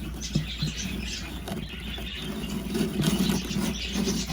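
Small cage birds chirping and chattering in an aviary, with a few light clicks and knocks.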